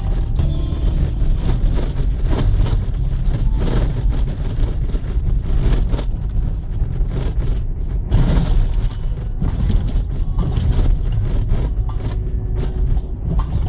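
Mitsubishi Pajero driving off-road: a steady low engine and drivetrain rumble, with frequent knocks and rattles as the vehicle jolts over rough ground.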